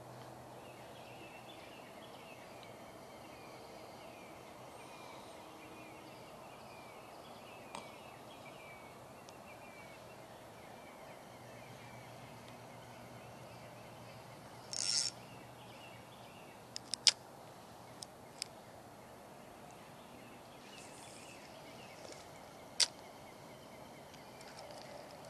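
Outdoor ambience with small birds chirping in the background over a steady low hiss. Later come a brief rasp and a few sharp clicks.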